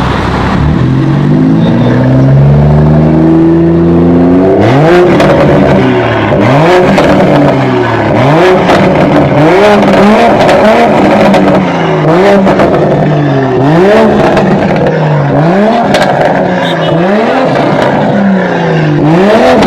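BMW Z4 engine being revved over and over: after a few seconds of steady running, the revs climb sharply and fall back about every second and a half.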